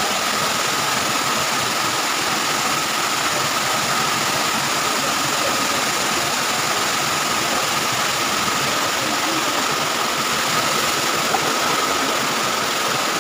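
Muddy floodwater rushing in a foaming torrent, a steady unbroken noise, with a faint steady high tone running through it.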